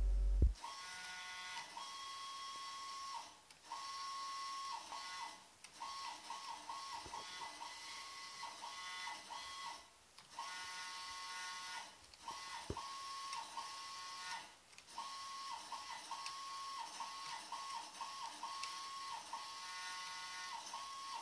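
Stepper motors of a home-built delta 3D printer whining as the carriages make their first moves after homing. The high tone keeps stepping slightly in pitch and falls silent for short pauses every few seconds. A brief loud low hum sounds right at the start.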